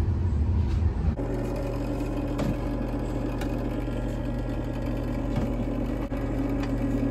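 A motor running with a steady hum; its sound changes abruptly about a second in and then holds steady.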